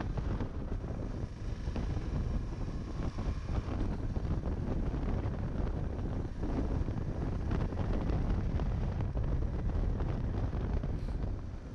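Steady wind buffeting on the microphone of a moving KTM 390 Adventure motorcycle, with the bike running underneath as it rides along at an even pace.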